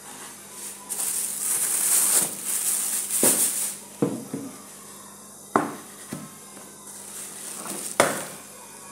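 A hissing rustle for a few seconds, then several sharp knocks of objects being handled and set down on a hard surface.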